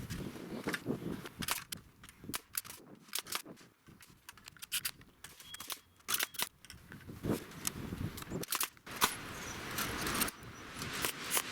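Irregular series of sharp knocks and clicks, a dozen or more scattered unevenly, with a stretch of rougher noise about three-quarters of the way through.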